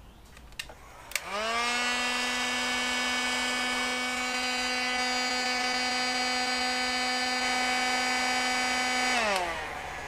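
A handheld electric heat gun clicks on about a second in. Its fan motor spins up in a quick rising whine to a steady hum while it blows hot air onto heat-shrink tubing over a soldered wire splice. Near the end the pitch drops to a lower steady hum.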